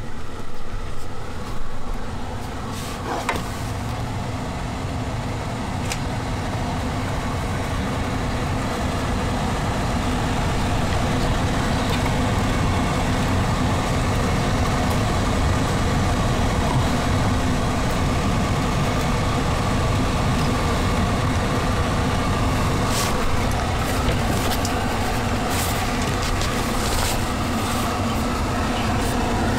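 Tesla Model Y's cabin air-conditioning blower running with a steady rushing noise, growing a little louder after the first few seconds, with a few light clicks over it.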